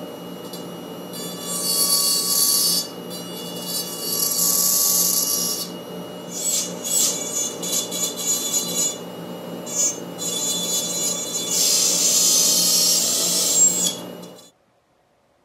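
Handheld rotary carving tool running with a steady whine while its small burr grinds into musk ox horn. The cutting comes in passes of a second or two, a harsh hiss that comes and goes, and the tool stops suddenly near the end.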